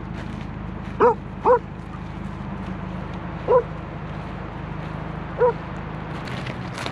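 A dog gives four short, high barks: two close together about a second in, then one a couple of seconds later and a last one near the end.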